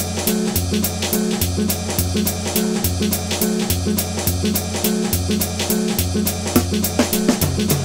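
Background music with a steady drum beat: quick, even strikes over sustained low notes.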